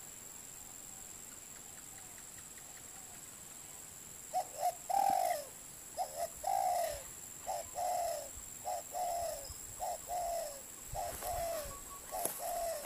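Spotted dove cooing. From about four seconds in, it repeats a phrase of two short notes and a longer falling coo, about seven times, roughly once every second.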